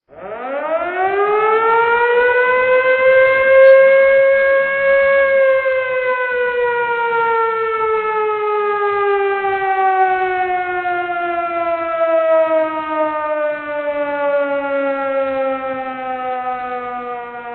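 Emergency warning siren sounding one long wail: its pitch climbs quickly over the first few seconds, tops out about five seconds in, then falls slowly and steadily for the rest of the cycle.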